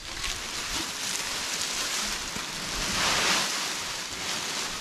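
Dry acorn husks rustling as they are shaken and poured out of a cloth sheet onto a pile, loudest about three seconds in.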